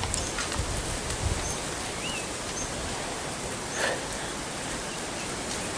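Outdoor ambience: a steady hiss with a few faint, short high chirps from small birds and soft ticks scattered through.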